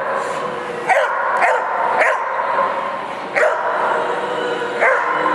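Dog barking five times at uneven intervals, short barks that each drop in pitch.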